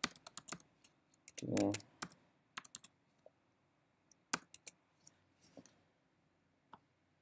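Typing on a computer keyboard: short runs of keystroke clicks with pauses between them.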